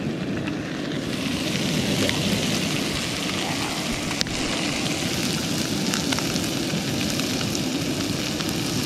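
Steady rushing hiss of a backpacking stove burning under a pan of whole trout frying, thickening about a second in, with a sharp click about four seconds in.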